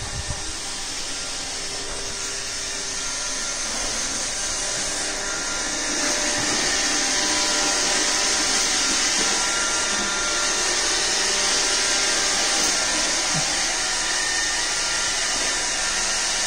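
iRobot Roomba robot vacuum running, a steady whirring hiss of its motor and brushes, getting a little louder about six seconds in.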